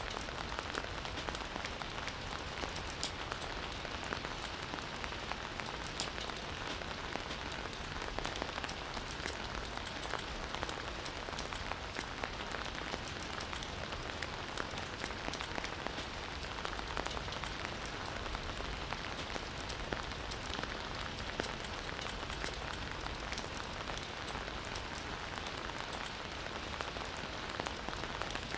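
Campfire burning steadily with a constant hiss and frequent sharp crackles and pops from the burning wood.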